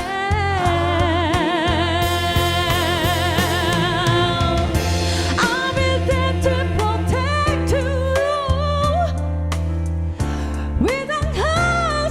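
A soul ballad song: sung vocals with wide vibrato over a backing track with a strong bass line and a light beat, with piano and backing harmonies. The singing pauses briefly about ten seconds in, then comes back with a rising phrase.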